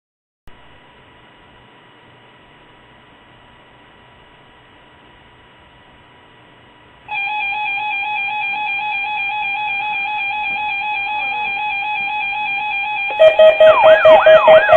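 Electronic alert tones: a faint steady tone from about half a second in, a much louder steady tone from about seven seconds in, then near the end a loud pulsing siren-like alarm with rapidly repeating rising sweeps over a held tone.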